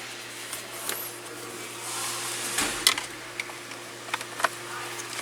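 A few scattered light clicks and taps of a flat screwdriver and plastic parts while the steering-wheel airbag's locking spring is pried free, over a steady low hum.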